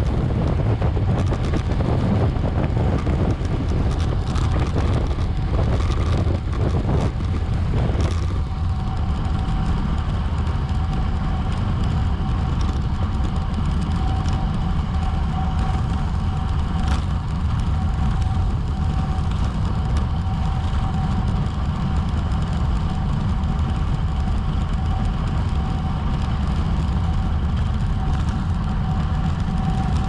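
Wind buffeting the microphone of a bicycle-mounted action camera while riding fast in a criterium, a steady low rumble mixed with road and tyre noise. There are scattered clicks in the first few seconds, and a faint steady high tone comes in about eight seconds in.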